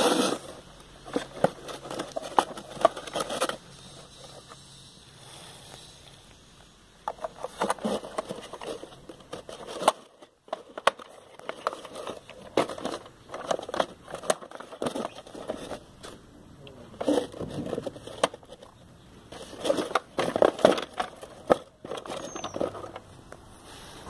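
Plastic toy armoured car being handled and turned over on its cardboard box: irregular clicks, scrapes and rattles in bursts, with quieter stretches between.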